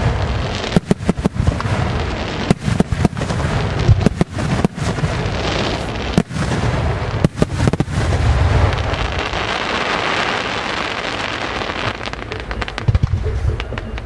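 Aerial firework shells bursting in quick succession, a rapid run of sharp bangs. About halfway through, the bangs give way to a few seconds of dense, continuous noise, and a few more bangs come near the end.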